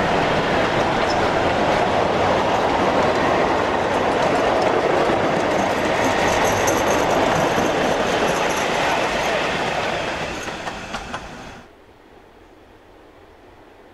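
Narrow-gauge train running close by, a steady rumble and rush of wheels on rail with some clicking from the joints. It eases off, and then drops away suddenly near the end.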